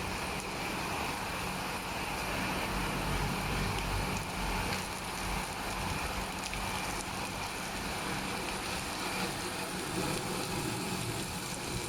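Rollover bus and truck washing machine running: a steady hum under a broad, even hiss, with no pause or change.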